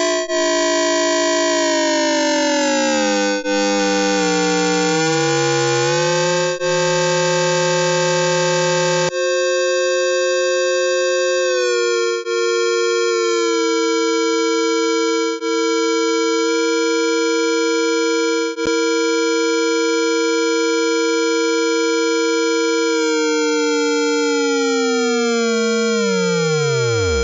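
Electronic synthesizer drone: sustained tones rich in overtones, gliding slowly in pitch, with a brief dip in level about every three seconds. About nine seconds in it thins abruptly to a few clean steady tones that step in pitch now and then, and near the end these sink in a long falling glide.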